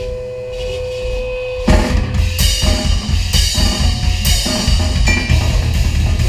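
A live grindcore band on stage: a held amplifier tone and hum, then about two seconds in the drum kit and amplified strings come in loud and fast, with repeated cymbal crashes over pounding bass drum.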